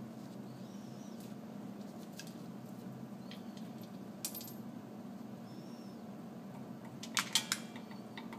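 Light clinks and taps of small metal bolts and washers and the milled carbon fiber part being handled on a milling machine's fixture plate, with a quick cluster of sharper clinks about seven seconds in, over a steady low hum.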